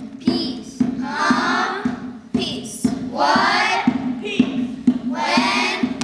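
Children's choir singing three short phrases over a steady beat of knocks, about two a second.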